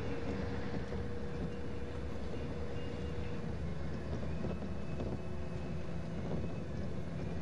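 A vehicle running steadily along a road: a continuous engine rumble and road noise. A steady hum over it stops about three seconds in.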